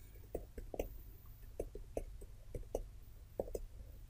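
Computer keyboard keys tapped as numbers are typed in: about a dozen faint, irregular keystrokes.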